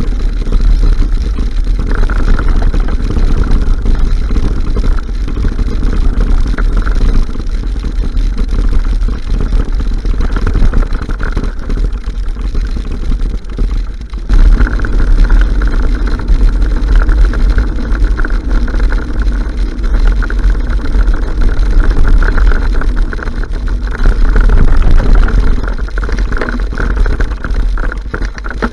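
Loud, continuous wind buffeting and rolling rumble on a bike-mounted camera's microphone as a mountain bike rides along a grassy trail, with a sudden change in the noise about halfway through.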